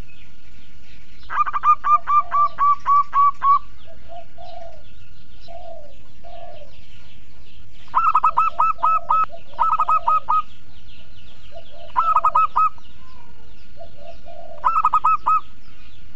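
Zebra dove (perkutut) singing: runs of rapid staccato coos, first a long run of about ten notes, then shorter phrases of four to six notes, with lower, softer coos between them. Faint chirps of small birds sit in the background.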